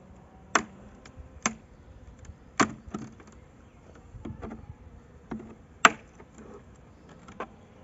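Metal hive tool prying and knocking wooden frames loose in a wooden beehive box: a series of short, sharp wooden clicks and knocks, the loudest about six seconds in.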